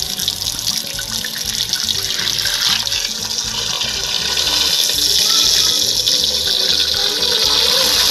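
Tap water running into a metal pressure cooker holding pieces of pork, refilling it with fresh water after the first rinse water was drained; the splashing grows louder about halfway through. Background music plays underneath.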